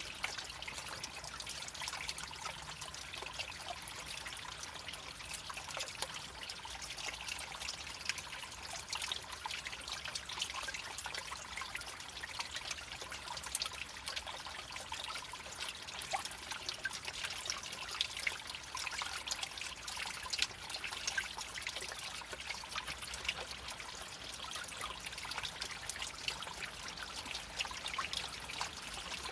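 Shallow creek trickling and babbling over rocks: a steady rush of water with many small splashes and drips.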